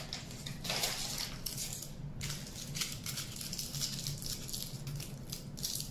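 Aluminium foil crinkling and crackling in irregular bursts as it is squeezed and pressed by hand, over a low steady hum.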